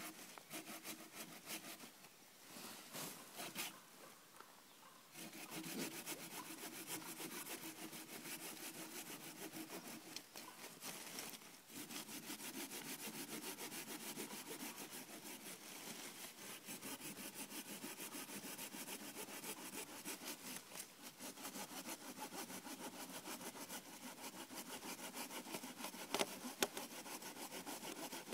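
Hand saw cutting through a log from a fallen tree in steady, rapid back-and-forth strokes, with a brief pause about four seconds in. A couple of sharp knocks sound near the end.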